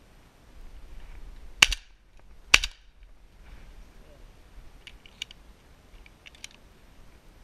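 Two shotgun shots about a second apart, sharp and loud, followed by a few faint clicks.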